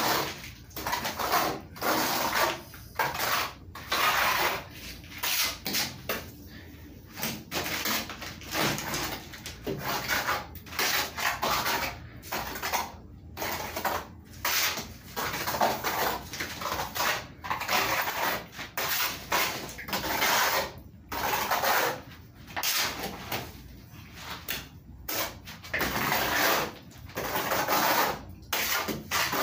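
Trowel scraping and spreading wet cement plaster over a concrete block wall in repeated rough strokes, about one a second, uneven in length and force.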